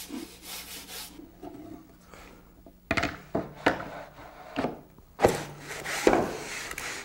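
Paste wax rubbed by hand onto the wooden runners and underside of a plywood crosscut sled, quick even strokes for about a second. Then the sled is set on the table saw and pushed back and forth in the miter slots: several wooden knocks and scraping slides, the loudest about five and six seconds in.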